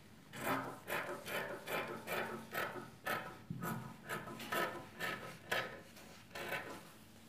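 Fabric shears cutting through fabric laid on a table: a steady run of crisp snips, about two to three a second, stopping shortly before the end.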